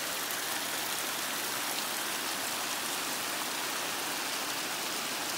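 Hot spring water running and dripping down a rock face into its runoff stream: a steady splashing rush.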